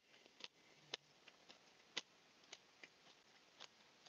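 Near silence, broken by about a dozen faint, irregular clicks; the two strongest come about a second and two seconds in.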